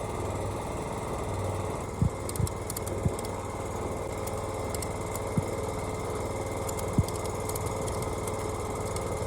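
Lawn mower engine running steadily while towing a strapped log, with a handful of short sharp knocks, the loudest about seven seconds in.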